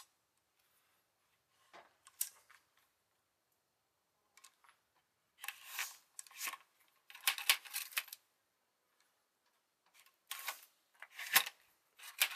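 Clusters of small metallic clicks and scrapes from handling a muzzle-loading percussion rifle between shots, growing busier from about halfway through.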